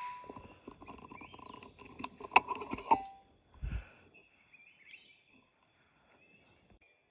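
An air rifle shot fading at the very start, followed by about three seconds of rustling and clattering with two sharp clicks, then a dull thud about halfway through. Small birds chirp throughout.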